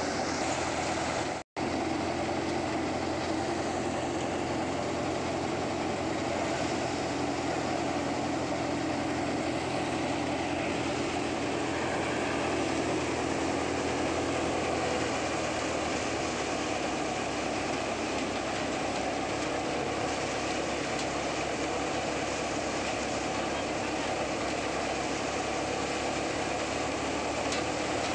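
Tractor-driven Farmer's paddy thresher running steadily, the tractor engine humming under the noise of the spinning threshing drum as rice straw is fed through. The sound drops out for an instant about a second and a half in.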